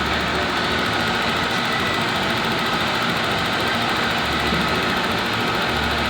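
Steady mechanical running noise with a faint, steady high whine.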